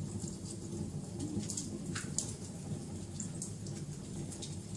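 Wood fire crackling, with scattered sharp pops over a low, steady rumble; the loudest pops come about two seconds in.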